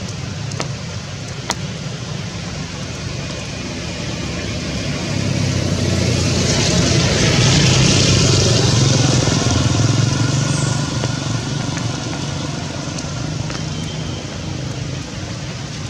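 A motor vehicle passing on a wet road: its engine and tyre hiss build to their loudest about halfway through, then fade. Steady rain runs underneath.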